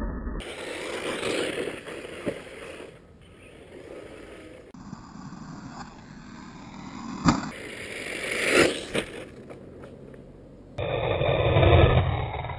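A brushless electric 1/10-scale RC buggy (DHK Wolf 2) running on a dirt track, its tyres scraping and scrabbling over the dirt. There are a couple of sharp knocks from hard landings, and the sound is loudest near the end as the buggy jumps past close by.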